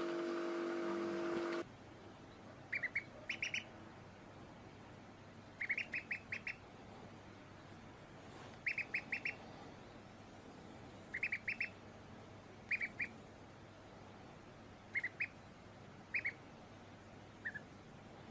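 A duck calling in quick runs of two to five short, high quacks, repeated every few seconds. At the very start, a steady mechanical hum cuts off suddenly.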